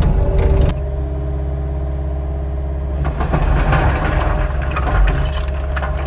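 Cat 259 skid steer's diesel engine running steadily. An abrupt change comes under a second in, and a harsher noise joins the engine from about three seconds in.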